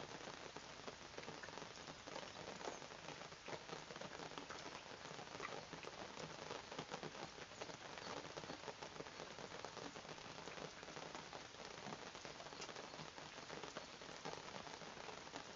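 Steady heavy rain falling: an even hiss of rain dense with small drop impacts.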